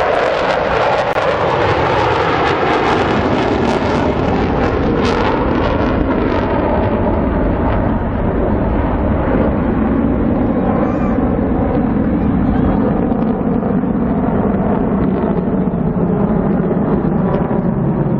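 A formation of USAF Thunderbirds F-16 fighter jets passing overhead: loud jet roar that comes up suddenly and stays loud. Its high hiss fades over the first several seconds as the jets move away, leaving a low rumble.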